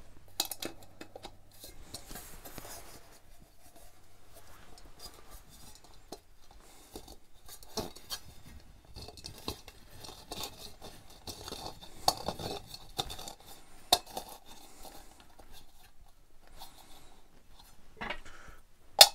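Light, scattered metal clinks and scrapes of pliers working a fixing inside a thin spun-aluminium lamp shade, with sharper clinks near the end as a steel spanner is picked up off the bench.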